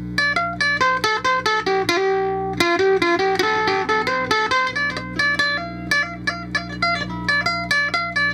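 Electro-acoustic ukulele played through an amplifier with a little distortion, picking a quick single-note melody. A steady mains hum runs underneath.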